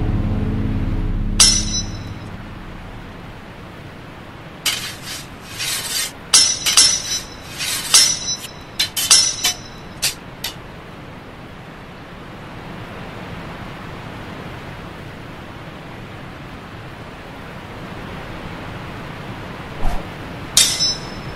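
Sword-fight sound effects: steel blades clashing and ringing, one clash about a second in, then a fast flurry of about a dozen over some six seconds, and two more clangs near the end as a sword is knocked away. Under them runs a steady rushing waterfall noise.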